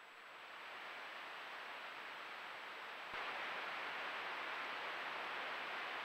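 Steady rushing hiss of creek water running past a trail camera's microphone. It grows a little louder in the first second, then jumps up with a click about three seconds in.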